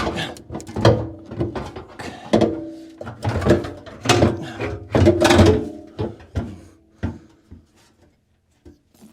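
A Mercedes 300CE's fuel tank being slid and wrestled into its bay in the car: a run of knocks, bumps and scrapes against the body, some with a brief ring, through about the first seven seconds, then a few light clicks as it settles in.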